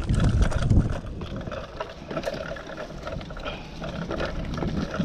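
Mountain bike rolling over a leaf-strewn dirt trail: tyre noise on leaves and dirt, with many small rattles and clicks from the bike, and wind rumbling on the camera microphone, heaviest in the first second.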